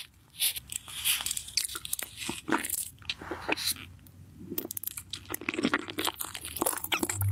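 Close-miked ASMR eating sounds: an eyeball-shaped gummy candy being bitten and chewed, a run of irregular short wet clicks and smacks.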